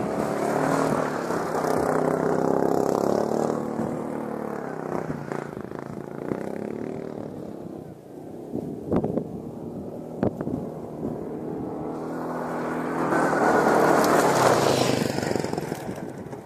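A 500 cc quad bike's engine revving as it pulls away and fading into the distance, then swelling again to a loud pass about two-thirds of the way through and dying away. A few sharp knocks come in between.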